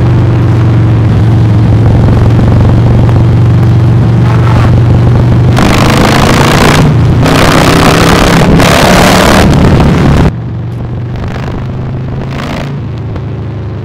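Harley-Davidson V-twin through a Jekill & Hyde flap exhaust, running steadily at road speed with a deep, muffled note, with wind rushing over the microphone at times. The level drops suddenly about ten seconds in.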